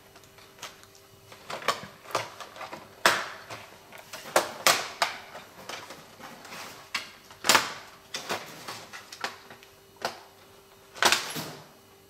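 Plastic bottom cover of an MSI GT72 gaming laptop being pried off by hand: scattered sharp clicks and snaps as its clips let go, the loudest about three, seven and eleven seconds in.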